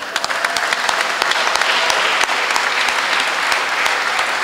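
Audience applauding, many hand claps overlapping into a dense steady patter.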